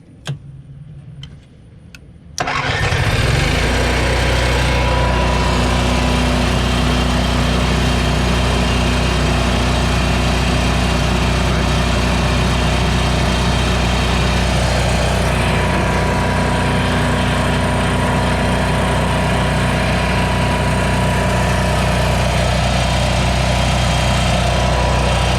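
Onan QG 4000 RV generator being primed and started: a few clicks and a brief low hum during priming, then about two and a half seconds in the engine catches and runs at a steady speed.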